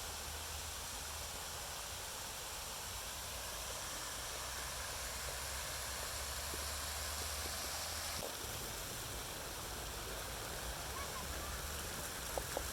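Fountain water spray: a continual, even hiss of falling water, shifting slightly about eight seconds in.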